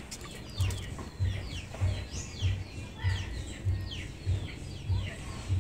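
Birds chirping over and over in short falling peeps, over a low thump that repeats a little under twice a second.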